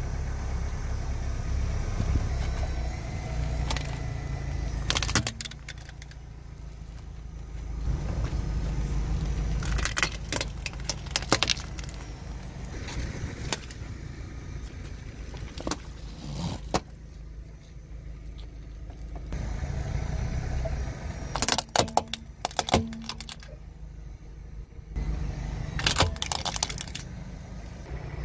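A car creeping forward with a low rumble while its tyre crushes objects laid on the road, giving several separate bursts of sharp cracking and crunching.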